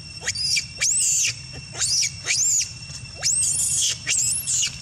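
Young long-tailed macaque giving repeated high-pitched distress screams, each call rising and falling, about one and a half a second.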